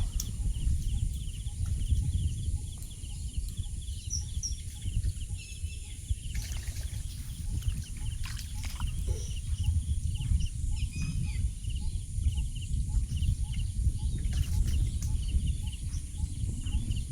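Outdoor ambience: a constant low rumble under a steady chorus of rhythmic animal calls pulsing several times a second, with a few brief bird chirps.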